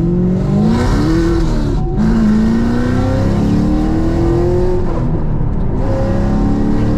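2017 Camaro SS 1LE's 6.2-litre LT1 V8, fitted with an aftermarket Texas Speed camshaft, accelerating hard. Engine pitch climbs and drops at an upshift about two seconds in and again around five and a half seconds in, then climbs once more.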